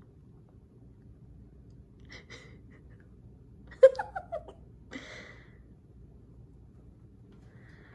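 A short, high-pitched vocal outburst about four seconds in: four quick notes, each falling in pitch, followed about a second later by a breathy puff. Only faint soft noises otherwise.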